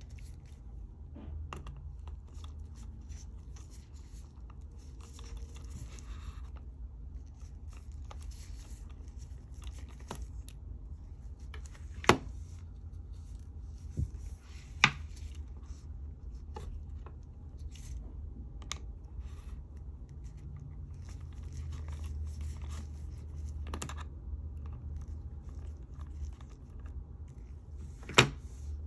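Close-up handling and tool work on an Apple iPod Classic being disassembled: light scraping and rustling broken by sharp clicks, the loudest about twelve, fifteen and twenty-eight seconds in, over a steady low hum.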